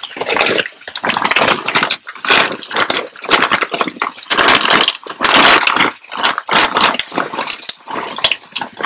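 A crinkly plastic bag of frozen stir-fry vegetables rustling as it is opened and shaken out, and the frozen vegetables landing in hot oil in a skillet and sizzling, in irregular loud bursts.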